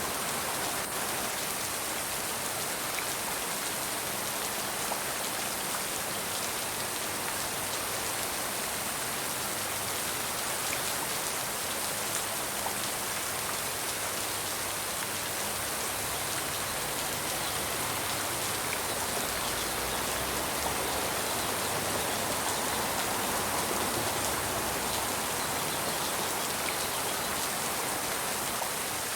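Steady rain falling and pattering on a surface, with individual drops ticking now and then.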